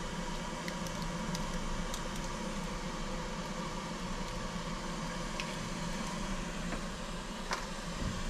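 A steady mechanical hum like a running fan, with a few light clicks scattered through it, the clearest one near the end.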